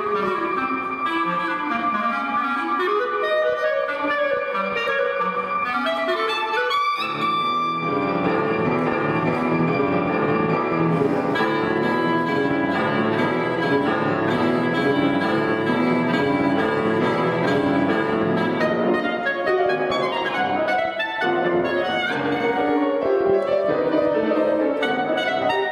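Clarinet and grand piano playing a contemporary chamber piece together: a held high clarinet note over moving piano lines, then, about seven seconds in, a dense run of many fast short notes from both.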